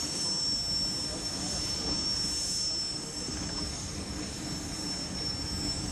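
Steam traction engine running with a steady low rumble and hiss, and a thin, constant high whine over it.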